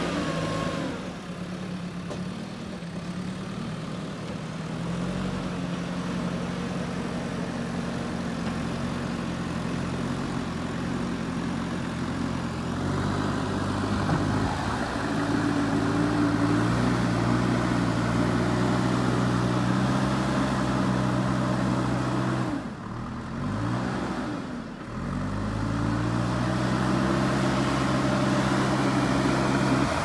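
JCB 3DX backhoe loader's diesel engine running under load as the machine grades soil with its front bucket. The engine note is steady for long stretches, with its pitch dipping and coming back up a few times, most clearly near the middle and twice in quick succession about three-quarters of the way through.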